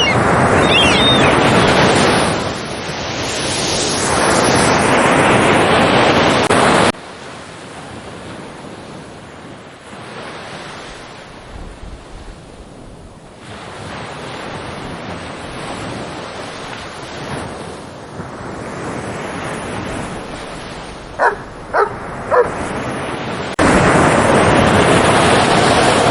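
A loud, steady rush of noise that cuts off suddenly to a much quieter hiss, then a dog barks three short times, and the loud rush cuts back in abruptly near the end.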